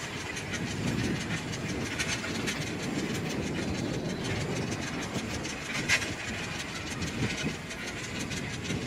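Bicycle rolling over street paving: a steady low rumble from the tyres with rapid rattling and clicking, and one sharper knock about six seconds in.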